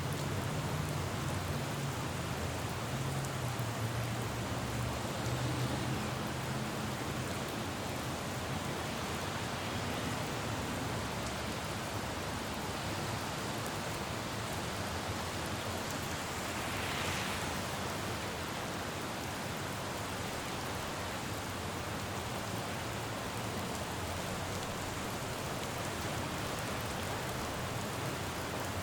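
Steady rain falling on a city road. A low vehicle rumble fades out over the first few seconds, and a little past halfway a brief swell of hiss rises and fades, like tyres passing on the wet road.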